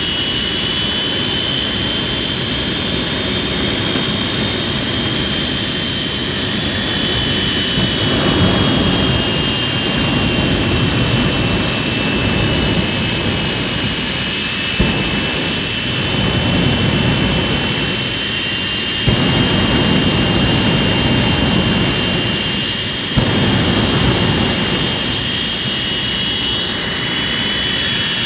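Jet engine running steadily: a loud rushing blast with a high, slightly wavering turbine whine over it, and a low rumble that swells and drops several times.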